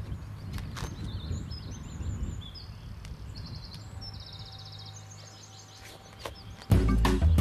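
Quiet outdoor ambience with small birds chirping and trilling and a steady low hum underneath. Music cuts back in loudly near the end.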